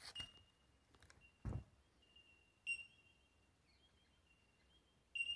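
Quiet outdoor ambience with a faint thin high tone that comes and goes, a dull thud about a second and a half in, and two sharp clicks with a brief high ring, one near the middle and one near the end.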